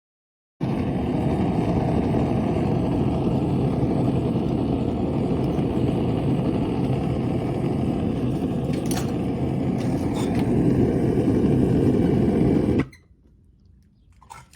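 Forge running: a steady rushing noise that starts suddenly about half a second in and cuts off abruptly near the end, with a couple of faint clicks in the middle.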